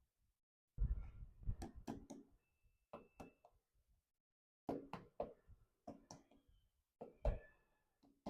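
Small toys being handled and set down on a hard surface: several short clusters of light knocks and clicks, a few with a brief faint ring.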